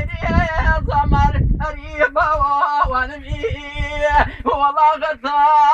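A man singing with a wavering, heavily ornamented melody over a steady held low note that enters about two seconds in. A low rumble sits under the voice for the first second and a half.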